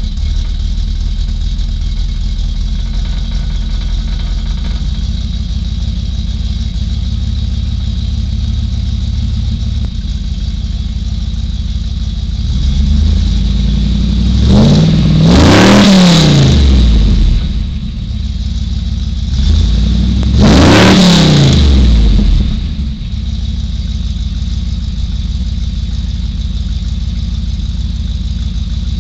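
GM 350 crate small-block V8 idling steadily through a 3-inch single exhaust and Magnaflow muffler. It is revved twice in the middle, the pitch climbing and falling back each time, then it settles back to idle.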